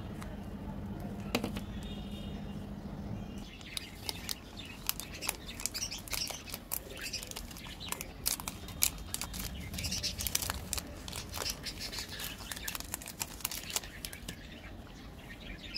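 Cadbury Dairy Milk chocolate-bar wrappers crinkling and tearing as they are unwrapped by hand, a dense run of sharp, irregular crackles starting a few seconds in.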